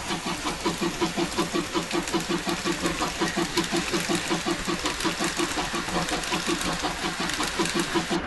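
Steam locomotive exhaust chuffs (draft sound) in a steady, even rhythm, a recorded sound effect laid over a model train's run.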